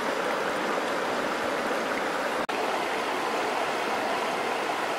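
Shallow, rocky river flowing: a steady rush of water, broken by a brief dropout about halfway through.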